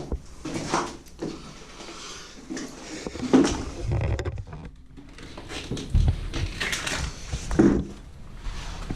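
Scattered knocks and scuffs with rustling, from people moving about and handling things on foot. The loudest knocks come about three seconds and about seven and a half seconds in.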